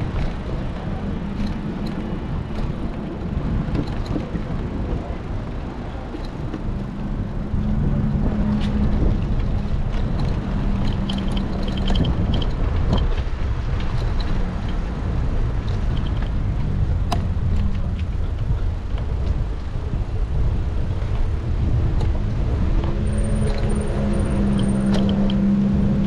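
Wind buffeting the microphone of a moving bike, a steady low rumble that grows louder about eight seconds in, with a faint steady hum underneath.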